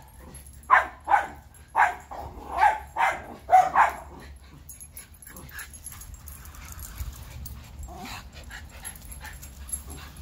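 Schnauzers barking in a rapid string of about six sharp barks over the first four seconds, then falling much quieter, with only a few faint yips.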